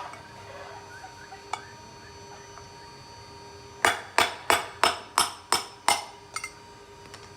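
Hammer tapping on metal: seven sharp, evenly spaced strikes, about three a second, with ringing, preceded by a few lighter clicks and followed by a faint double click.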